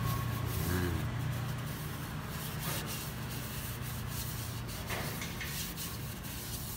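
Hand and cloth rubbing and scraping on a plastic air cleaner housing as it is wiped clean of dust and its lid handled, with small clicks of plastic.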